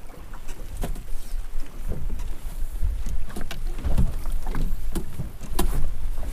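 A small boat on open water: wind rumbling on the microphone, with irregular sharp knocks from the boat and the water against it.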